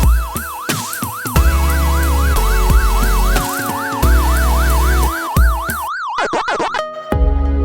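Electronic background music with a siren-like warbling tone that rises and falls about two and a half times a second over heavy bass notes; the warble stops near the end while the music carries on.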